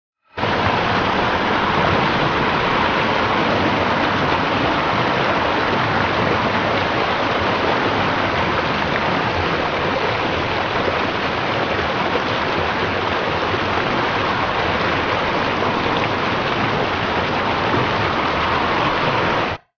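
Steady rush of fast-flowing floodwater from the River Wey in flood, which starts and stops abruptly.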